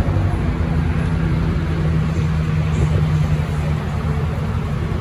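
Dodge Charger R/T's 5.7-litre Hemi V8 idling steadily and loudly through a straight-piped exhaust: cats cut out, 3-inch piping from the X-pipe back and 5-inch tips, giving a deep drone.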